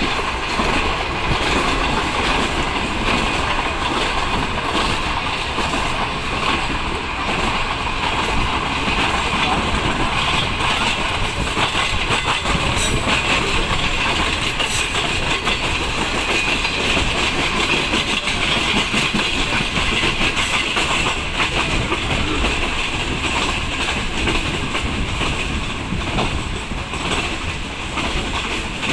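Passenger train running along the track, heard from aboard a carriage: a steady rush and rumble of wheels on the rails.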